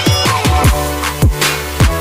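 Background music: an electronic hip-hop style beat with deep kick drums that drop in pitch, landing about every half second or so, over held bass notes.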